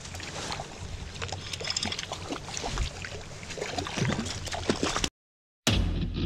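Outdoor waterside sound: scattered small clicks and knocks over a steady hiss, with some water sound. It cuts off abruptly about five seconds in, and after a short silence music starts.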